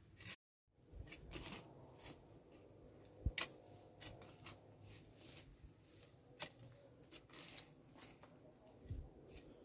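Shovel blade digging into dry, grass-covered soil: faint, irregular scrapes and thuds about once a second, the sharpest about three seconds in.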